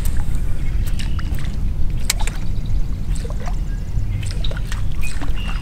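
Small waves lapping and sloshing against the hull of a bass boat, in short irregular splashes over a steady low rumble.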